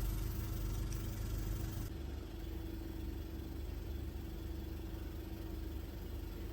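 Steady motor hum of the hydra-facial machine's pump driving the spray mix gun, with a constant mid-pitched tone; a faint hiss over it cuts off about two seconds in.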